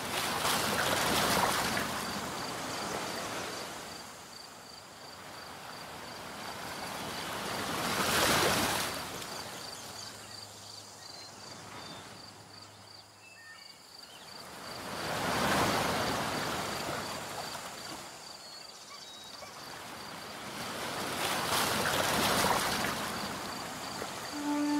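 Waves washing onto a shore, a swell rising and falling about every seven seconds, four times.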